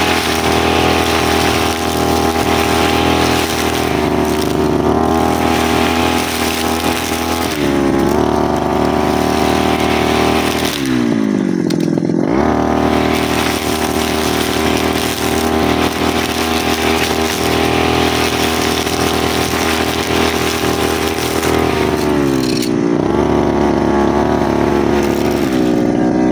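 Brushcutter engine running at high throttle while sweeping dry leaves off a road. The throttle is eased off about seven seconds in, dropped nearly to idle about eleven seconds in and opened up again, then eased off once more about twenty-two seconds in.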